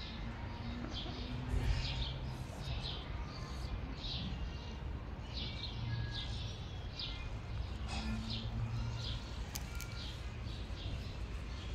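Small birds chirping repeatedly, short high chirps coming about every half second, over a steady low outdoor background rumble.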